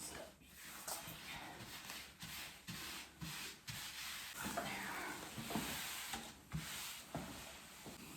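Intermittent rubbing and rustling of fiberglass wall covering as it is handled and pressed onto the glued wall, in uneven strokes with short pauses between them.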